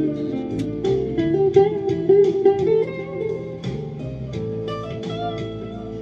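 Squier junior electric guitar played solo: a melody of single plucked notes, each left to ring, louder in the first half and softer after about three seconds.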